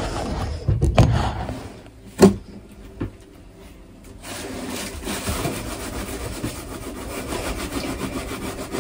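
A few handling knocks and a sharp click, then from about four seconds in a steady scrubbing: a cloth rubbed hard back and forth over glazed ceramic wall tiles, working dried grout residue off them.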